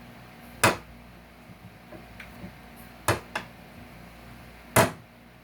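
Sharp knocks of hand tools on wood while staples are pulled out of salvaged couch lumber: three loud knocks, the second followed by a lighter one, with faint small clicks between them.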